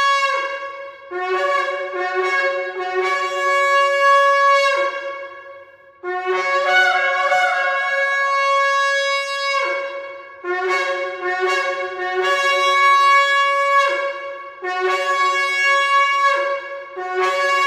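Shofar (ram's horn) being blown in a repeated series of blasts: groups of short notes alternating with long held notes of two to four seconds, each note bending down in pitch as it ends.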